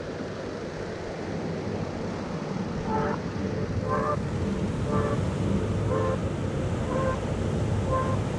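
Steady surf and wind noise. From about three seconds in, a short pitched beep repeats about once a second, fading a little toward the end.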